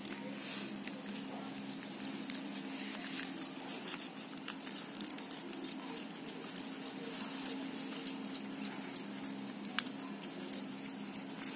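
Steel scissors snipping through a thin polythene bag in a run of short, irregular crisp snips, cutting the plastic open along its side.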